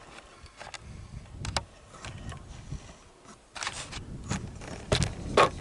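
Footsteps and rustling of clothing and gear as people walk over rough ground, with irregular sharp knocks that come closer together and louder from a little past halfway.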